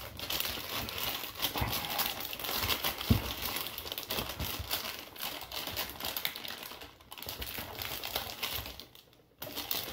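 Plastic courier mailer bag being crinkled and pulled open by hand, an irregular rustling and crackling that drops away briefly near the end.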